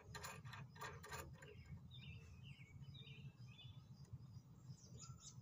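Faint small metallic clicks as a nut and washers are spun by hand onto a ramp-plate bolt, in the first second or so, then a bird chirping a few times, over a quiet outdoor background.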